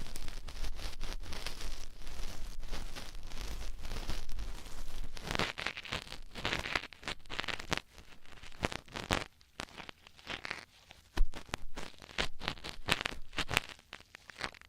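Ear-cleaning tools scratching, scraping and rustling close to the microphone, with crackly clicks. The sound is dense and continuous at first, then breaks into separate scrapes, with one sharp click near the middle, and stops near the end.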